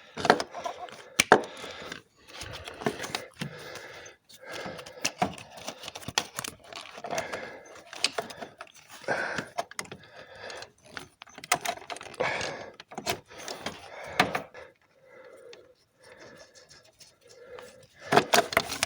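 Irregular metal knocks, clinks and scrapes as a heavy common-rail high-pressure fuel pump is worked loose and manoeuvred out past the surrounding engine parts.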